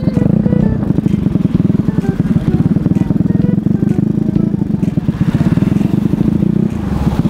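Tuned Yamaha Mio Sporty scooter's single-cylinder engine running under way, a dense rapid pulsing buzz, picked up distorted by a faulty helmet-camera microphone.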